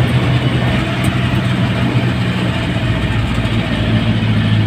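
Jeepney engine running steadily while the jeepney drives along the road, heard from inside the cab with road noise, the engine note shifting slightly about four seconds in.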